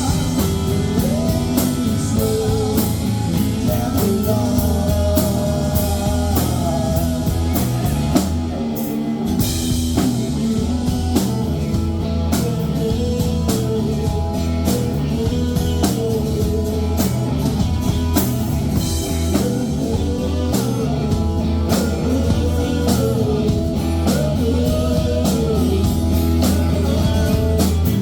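Rock band playing live: singing over guitar and a steady drum-kit beat, with a short break in the beat about nine seconds in.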